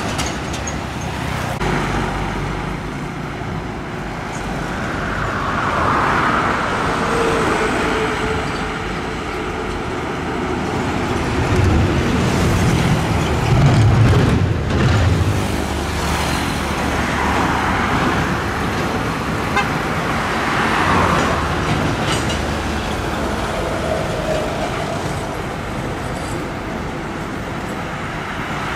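Heavy diesel trucks and motorcycles passing on a busy road: engine and tyre noise swelling and fading as each vehicle goes by, with the deepest engine rumble about halfway through.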